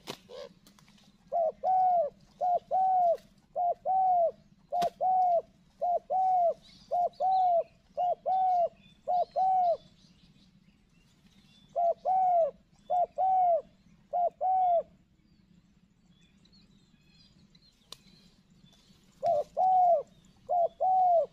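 Spotted dove cooing: repeated short arched coos, mostly in pairs, falling silent briefly near the middle and for several seconds before the last few coos.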